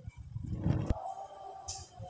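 Low rumbling thuds of handling as melted desi ghee is poured from a glass bowl into an iron kadhai, with one sharp click a little before a second in.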